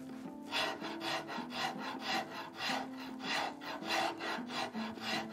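Hand rasp filing the profile of a wooden guitar neck, with quick, even scraping strokes about four a second starting about half a second in.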